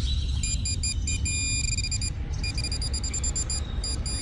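Metal detector beeping rapidly in short, high-pitched electronic pulses, a few of them held a little longer: it is signalling a metal target close by, here a 50-centavo coin. A low rumble of wind or handling noise runs underneath.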